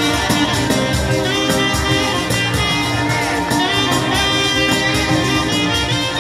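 Live folk band playing an instrumental passage, with accordion, saxophone, guitar and drums over a steady beat.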